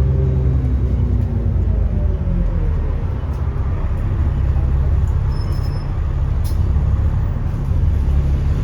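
Alexander Dennis Enviro400 double-decker bus engine running under way, heard on board. For the first two to three seconds a pitched whine falls as the revs drop, then a steady low rumble carries on, with a few light clicks and a short high tone about five seconds in.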